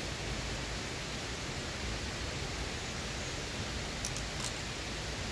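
Steady rush of flowing stream water, an even hiss with no change in level, with a few faint ticks about four seconds in.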